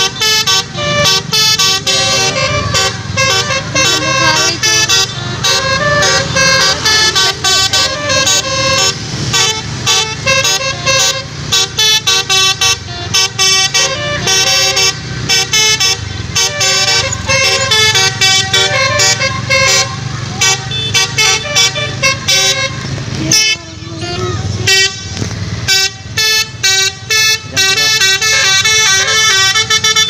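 Basuri telolet bus horn playing a quick melody of short musical notes, with a brief break a little over three-quarters of the way through and longer held notes near the end, over a steady low engine rumble.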